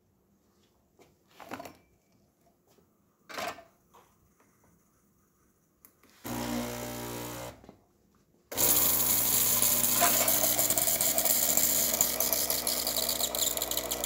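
Gaggia Cadorna Plus espresso machine pumping hot water out of its wand into a stainless steel pitcher. The pump hums briefly about six seconds in, then from about eight and a half seconds a loud, steady hissing stream of water runs over the pump's hum, with two light knocks earlier.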